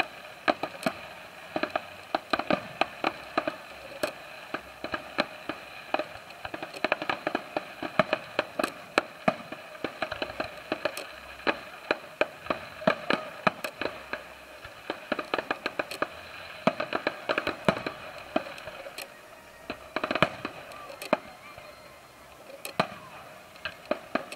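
Fireworks display: aerial shells and crackling effects bursting in quick, irregular sharp bangs, often several a second, thinning out near the end.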